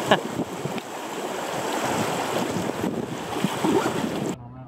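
Rushing, riffling river water mixed with wind on the microphone, with a brief sharp knock just after the start. The rush cuts off abruptly near the end.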